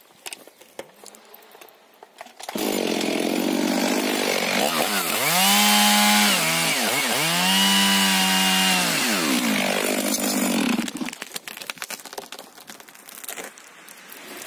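STIHL MS 500i chainsaw sawing the felling cut through a spruce trunk. It starts about two and a half seconds in, runs at high revs with its pitch dipping twice as the chain bogs in the wood, and cuts off about eight seconds later. Faint cracks and rustling follow as the tree goes over.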